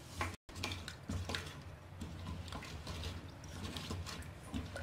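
Wooden spoon stirring sliced raw potatoes in water in a stainless steel rice-cooker pot: irregular knocks and scrapes of spoon and potato slices against the metal, with a little water sloshing.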